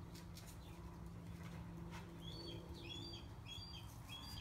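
A small bird chirping faintly, repeating a short high phrase about four times in the second half, over a steady low hum.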